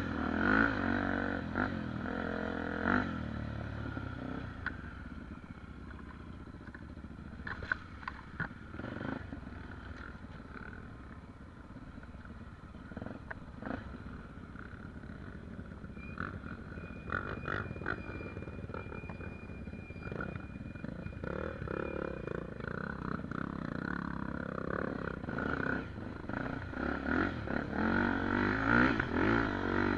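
Dirt bike engine running and revving at changing speeds, louder at the start and again near the end, quieter through the middle. A few sharp knocks come about eight seconds in.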